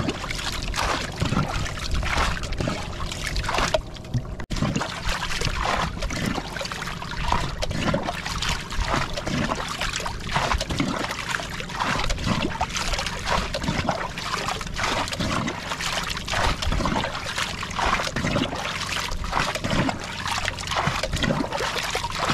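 Sea water sloshing and lapping against a small outrigger boat: irregular splashes over a steady wash of water.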